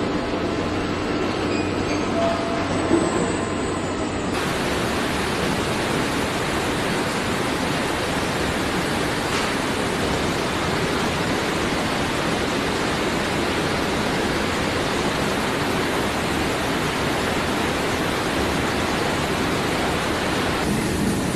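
Steady, even rushing noise of car-factory machinery and air, with a few light metallic clinks in the first seconds. About four seconds in the sound changes abruptly and only the plain steady rush remains.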